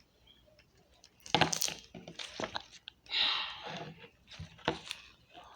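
Slime being squeezed and worked by hand: after a quiet first second, a run of sharp sticky clicks and short hissing bursts.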